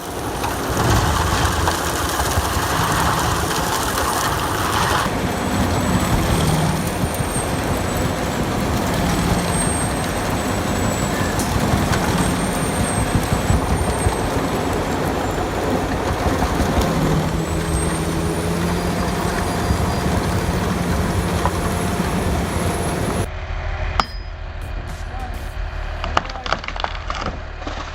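Heavy land-clearing machinery running steadily under load, a dense mechanical noise with a steady engine hum. The sound shifts abruptly about five seconds in, and again near the end, where it turns quieter with scattered knocks.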